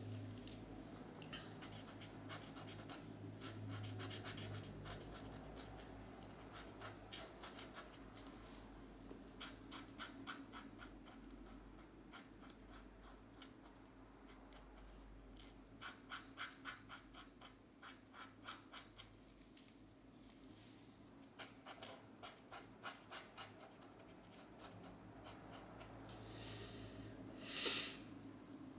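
Felt-tip markers scratching on a colouring-book page, in runs of quick back-and-forth strokes about four a second with short pauses between them. Near the end there is a single louder, brief brushing sound.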